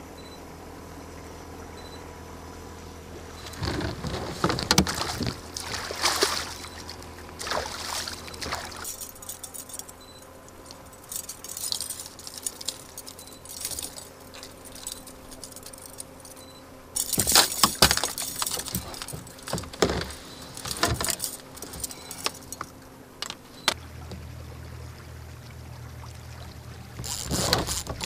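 Boat motor running steadily at trolling speed, with several bursts of clicking and rattling from fishing gear being handled on board.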